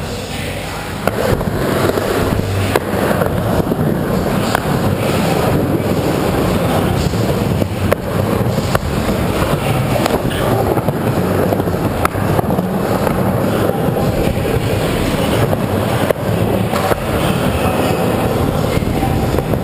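Skateboard wheels rolling continuously through a skatepark bowl, making a steady, loud rolling noise, with sharp knocks from the board and trucks every few seconds.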